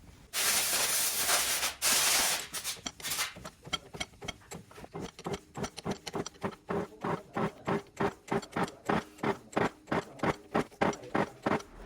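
A loud hissing burst lasting about three seconds, then a steady run of sharp knocks or taps, about three a second, each with a short ring.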